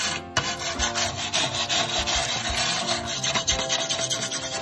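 A hand brush scrubbed back and forth over a wet sheet-steel tractor dashboard panel, a steady rough rubbing.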